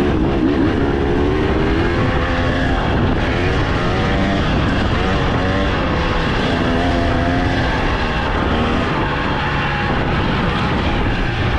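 Dirt bike engine running, its pitch rising and falling as the throttle is opened and closed, over a constant rushing noise.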